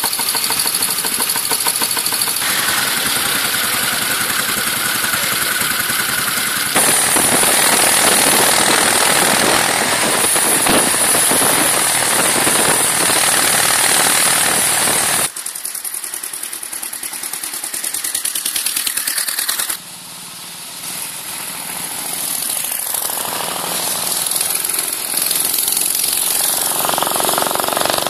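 Vintage motorcycle engines running, in short clips that change abruptly every few seconds. The loudest stretch, in the middle, is engine and wind noise from a moving motorcycle. Near the end, a motorcycle engine grows steadily louder as it approaches.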